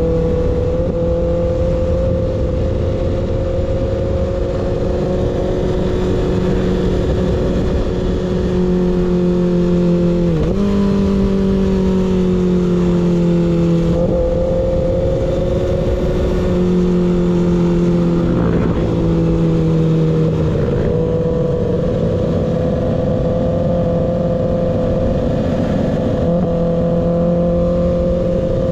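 Kawasaki ZX6R inline-four running through an unbaffled M4 GP19 slip-on exhaust while riding at a steady pace. The engine note holds steady, with brief dips in pitch a few times as the throttle is eased.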